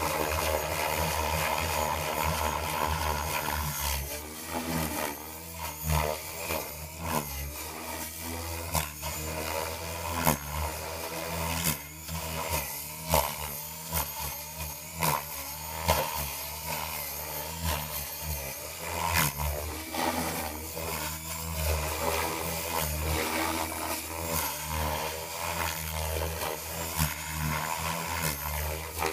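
Radio-controlled model helicopter in flight: its motor and rotor whine keep rising and falling in pitch as it manoeuvres.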